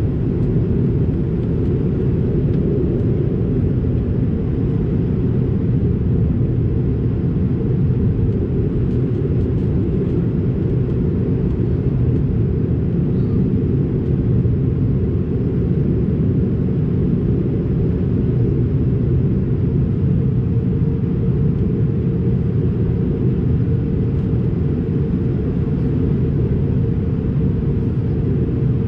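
Steady low rumble of cabin noise inside an Airbus A220-300 airliner in flight: its engines and the air rushing past the fuselage, unchanging throughout, as the aircraft descends toward landing.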